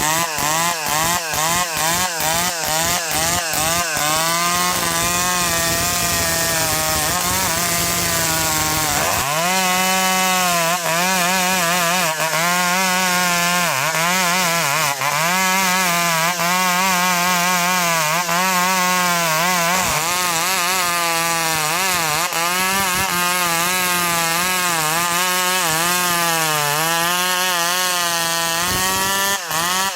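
Two-stroke chainsaw cutting ulin (Borneo ironwood) at high revs, its engine pitch repeatedly dipping and recovering as the chain is loaded in the hardwood.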